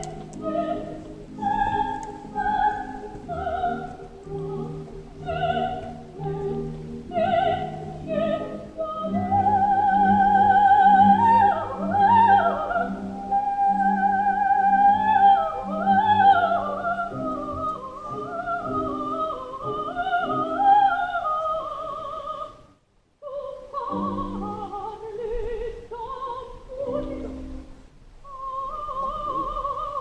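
Coloratura soprano singing an operatic aria with accompaniment: short detached notes at first, then from about nine seconds high trills and quick runs, broken by a brief silence a little past the middle.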